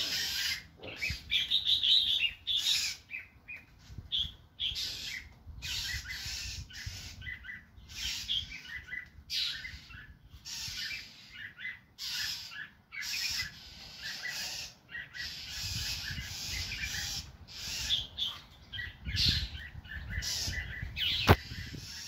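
Songbirds giving repeated, rough alarm calls: parent birds mobbing a hawk perched close by. A short knock sounds near the end.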